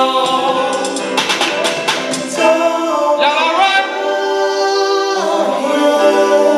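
Gospel singer singing into a handheld microphone, holding long notes.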